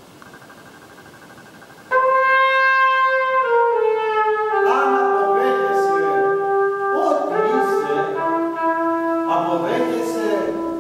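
A trumpet comes in about two seconds in with long held notes that step down in pitch and settle on one sustained low tone. Three short, wavering bursts of another sound come in over the held notes.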